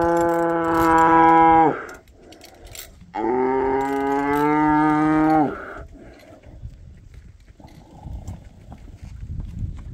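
A cow mooing twice, two long steady calls about a second and a half apart, each dropping slightly in pitch as it ends.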